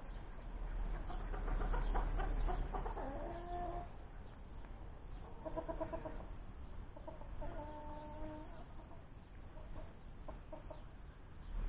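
Chickens clucking and calling, with several short pitched calls, a burst of clucks a little past the middle and a longer held call soon after. A low rumble of wind on the microphone is loudest in the first few seconds.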